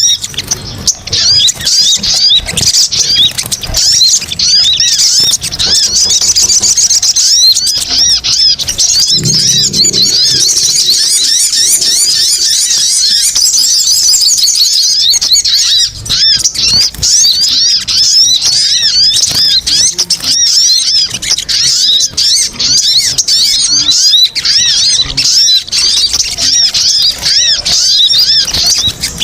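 Little spiderhunters (sogon) calling nonstop in a dense, high-pitched chatter of rapid short notes, a noisy many-bird lure recording used to call the birds in.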